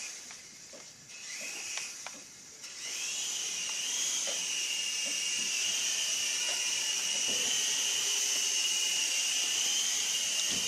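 Small electric motors and rotors of a Sky Rover Navigator toy RC helicopter whining at a high pitch. The whine is fainter for the first few seconds, then rises about three seconds in and holds steady in flight.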